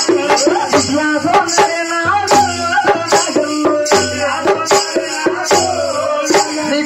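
A man singing a Telugu devotional folk song through a microphone and PA, kept in time by a steady beat of small metal hand cymbals.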